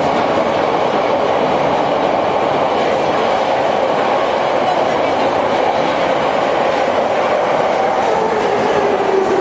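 Moscow metro train running, heard from inside the carriage: a loud, steady rumble of wheels and running gear. Near the end a motor whine starts to fall in pitch as the train slows.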